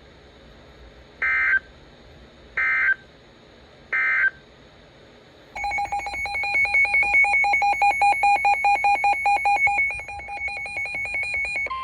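Three short bursts of EAS SAME data tones, the end-of-message signal that closes a weather alert. About halfway through, an electronic alert tone starts, warbling rapidly between a low and a high pitch for about six seconds.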